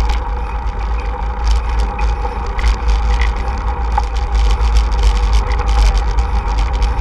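Wind buffeting the microphone of a camera on a moving bicycle, a loud steady low rumble, with tyre noise and many small rattling clicks as the bike rolls over the pavement.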